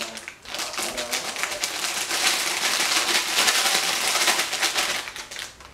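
Thin plastic bag crinkling as it is shaken and squeezed to empty a powdery mix into a glass baking dish: a dense, rapid crackle lasting about five seconds.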